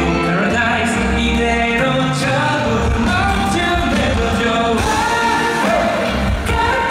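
Live pop song: a male vocalist singing a melody over full instrumental backing with steady bass.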